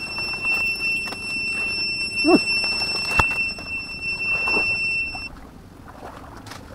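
A steady high-pitched whine held on one pitch that cuts off abruptly about five seconds in. A short rising-and-falling call comes about two seconds in, and a single sharp click about three seconds in.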